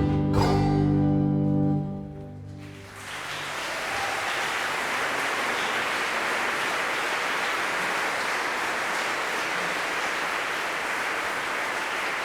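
A bluegrass band's closing chord rings out and dies away over the first two seconds or so. Audience applause follows from about three seconds in and stays steady.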